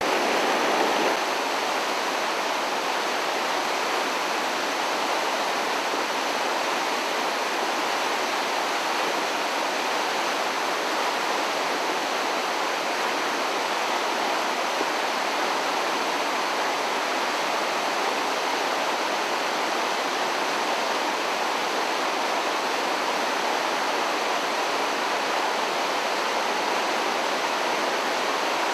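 Floodwater of a swollen creek rushing past in a steady, unbroken roar.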